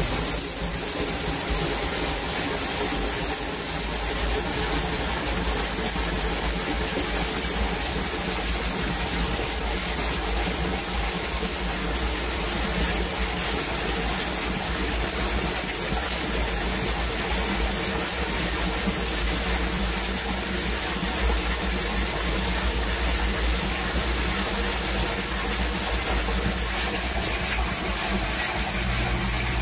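Heavy stream of muddy stormwater pouring from a drain pipe into a partly filled sump basin: a steady gushing splash of water into water.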